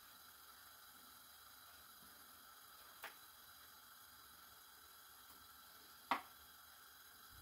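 Near silence over a faint steady hiss, broken by two short knocks: a small one about three seconds in and a louder one about six seconds in, as a hand reaches into the frying pan of duck pieces in wine.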